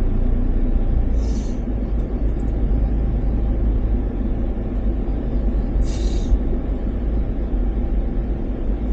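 Vehicle running along the road with a steady low rumble of engine and wind on the microphone. A brief hiss cuts through about a second in and again around six seconds.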